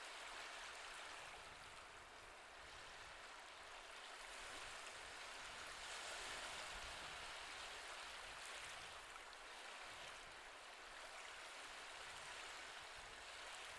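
Faint recorded ocean waves washing in, a soft steady hiss of surf that swells and eases every few seconds.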